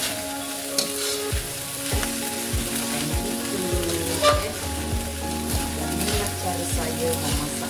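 Fried rice sizzling in a wok as a slotted metal spatula tosses and turns it over, with sharp scrapes of the spatula against the pan now and then. The rice is being turned to mix in fried egg and dry it out.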